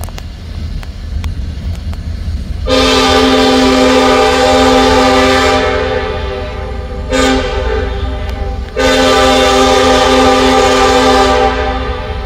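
Norfolk Southern lead locomotive's air horn sounding for a grade crossing: a long blast, a short one, then another long one, each a chord of several notes, over a low steady rumble of the approaching train.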